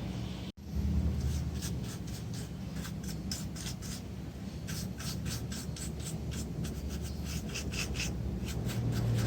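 Quick scratchy rubbing strokes, about three a second, over a steady low hum. The sound cuts out briefly about half a second in.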